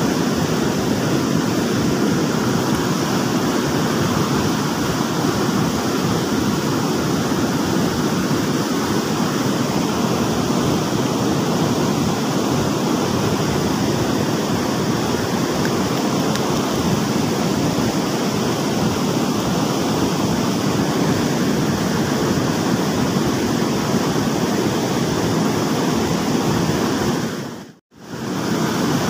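Fast-flowing stream water rushing steadily, loud and unbroken. The sound dips out to silence briefly near the end, then returns.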